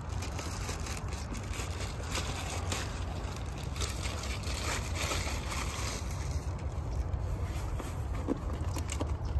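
Plastic poly mailer bag crinkling and rustling as it is opened and a small box is pulled out of it, over a steady low rumble.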